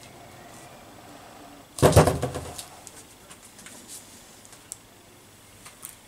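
Handling noise on a spray-painting workbench: a short, rattly clatter about two seconds in, then a few faint clicks.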